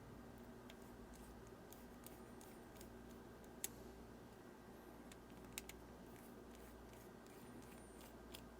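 Near silence with a few faint, sharp clicks, the loudest about three and a half seconds in: small screws and a precision screwdriver being handled on a G-Shock watch's resin case.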